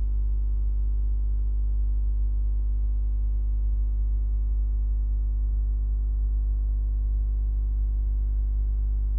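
Steady low electrical hum with a buzzing stack of overtones, unchanging throughout: mains hum on the recording, which drowns out any sound of the simmering chicken.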